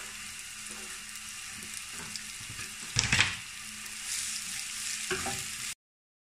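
Sliced bitter gourd frying in hot oil in a nonstick pan, a steady sizzle, while a silicone spatula stirs it against the pan, loudest about three seconds in. The sound cuts off suddenly near the end.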